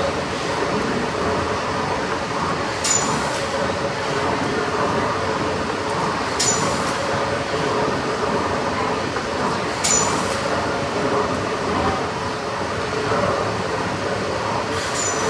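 Kempton's giant triple-expansion steam pumping engine running slowly: a steady mechanical rumble, with a sharp click or hiss about every three and a half seconds as each stroke comes round.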